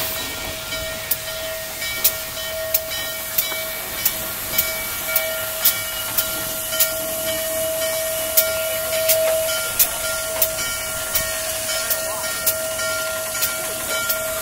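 Norfolk and Western 611, a J-class 4-8-4 steam locomotive, standing with steam hissing steadily. Under the hiss runs a steady whine and sharp regular beats about every 0.6 seconds.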